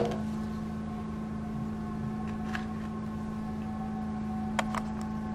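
Steady low hum and hiss of room tone, with a faint click about two and a half seconds in and a few light clicks near the end as items are set down on a table.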